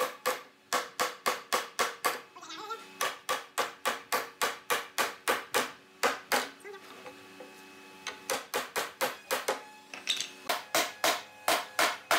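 Runs of sharp hammer strikes on wood, about four a second, with a short pause about a third of the way in and a longer one just past the middle.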